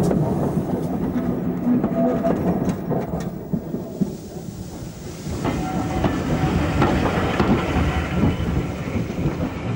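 Steam-hauled train moving along the track: a low rumble with wheels clicking over the rail joints, easing off about four seconds in and building again.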